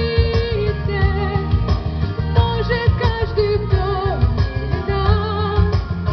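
A woman singing a held, wavering melody over a backing track with a steady beat.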